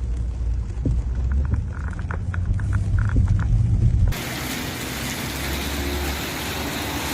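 A low rumble, then after an abrupt cut about four seconds in, the steady hiss of heavy rain.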